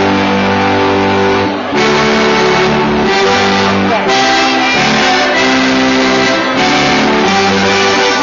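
Sardinian folk dance music: sustained reed-like notes over a steady low drone, the tune moving to a new note every second or two.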